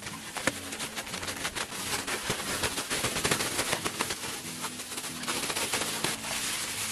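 Clear plastic bag crinkling and rustling in dense, irregular crackles as chicken pieces are shaken inside it to coat them in white powder.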